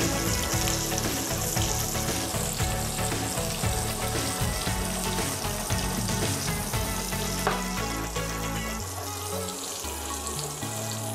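Sliced red chillies sizzling and crackling in hot oil in a small frying pan, being fried to half-done. Background music with changing low notes plays underneath.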